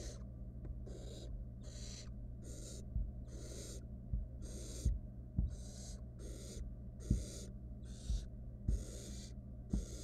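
Barn owl nestlings giving their rasping, hissing 'snoring' begging call over and over, about three hisses every two seconds. Several soft low thumps come in from about three seconds in, and a steady low hum runs underneath.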